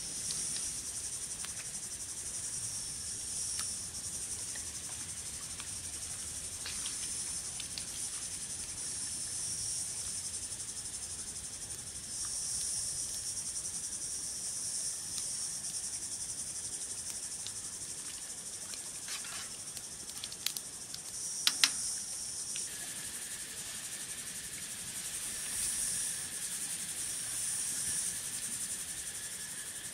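Insects chirring continuously in a high, shrill chorus that swells and fades every few seconds. A few sharp clicks come about two-thirds of the way in, and a steady lower whine sets in just after.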